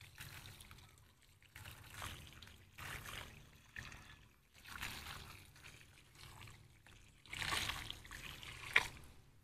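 Boiling water poured from a plastic cup onto salted goat offal in a plastic basin, to scald and clean it. The water trickles in a series of short pours, with a longer, louder pour near the end.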